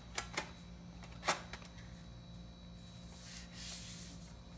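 MacBook Pro's aluminium bottom cover being set in place and handled: a few light clicks and taps, the loudest about a second in, then a soft sliding scrape near the end.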